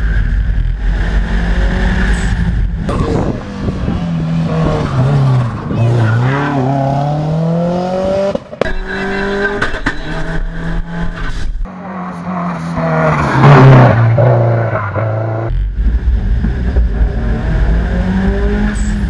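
Subaru Impreza WRX STI Spec C rally car's turbocharged flat-four engine at full race effort, its pitch repeatedly falling and climbing as it lifts and accelerates. The sound breaks off abruptly several times, about 8 and 12 seconds in.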